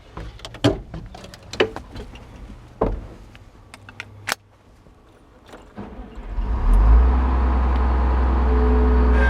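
A few sharp clicks and knocks, then about six seconds in an engine starts up and settles into a steady low running sound.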